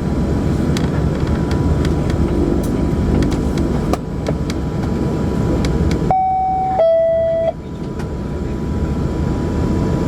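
Cabin noise of an Embraer 120 Brasilia's twin turboprop engines running steadily. About six seconds in, the cabin chime sounds once as a two-note high-low ding-dong.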